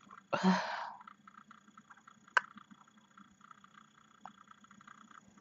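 A person's short, loud breath about half a second in, with a brief hum of voice, at the tail of a yawn. A single sharp click follows about two and a half seconds in, over faint chirping.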